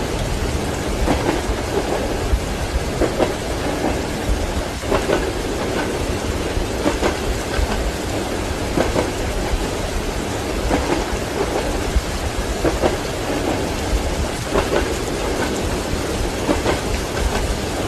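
Steady rain mixed with a train's wheels clacking over rail joints, the clicks coming in short clusters about every two seconds over a continuous rumble.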